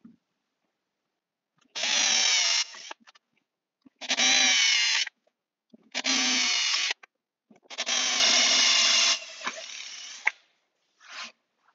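Cordless drill boring an 11.5 mm hole into a plywood board, run in four spurts of about a second each with pauses between, the last one longer and trailing off quieter. In the last spurt the bit breaks through the underside, with tear-out.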